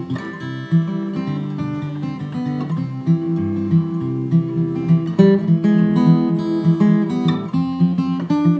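Background music played on acoustic guitar, picked and strummed.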